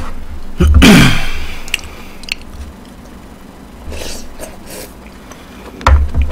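Close-miked eating of spicy rice cakes (tteokbokki) with a wooden spoon: chewing and mouth noises. There is a loud noisy mouth sound with a falling tone about a second in, and sharp clicks of the wooden spoon against the pan, with a heavier knock near the end.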